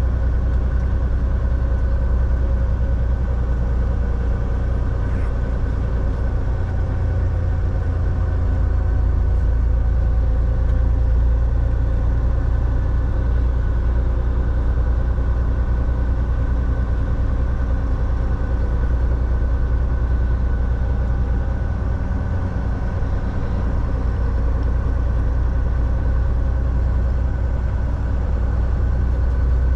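Semi truck's diesel engine running steadily while driving, a continuous low drone that stays level throughout.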